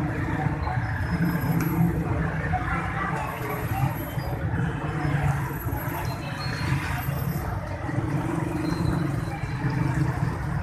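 Steady low rumble of street traffic and engines, mixed with the crackling sizzle of batter dropping through a slotted ladle into hot frying oil in a large karahi.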